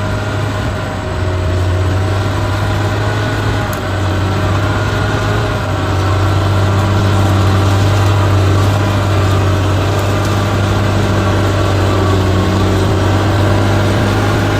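Heavy diesel engine of an earthmoving machine running steadily at one unchanging pitch.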